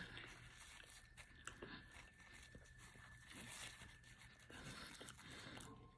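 Near silence with faint, scattered eating sounds: soft clicks and quiet chewing of food.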